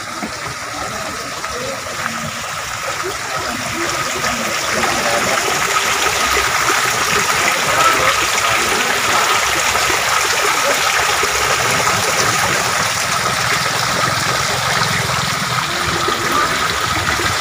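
Water pouring and splashing steadily into a tarpaulin-lined fish pond, getting louder a few seconds in.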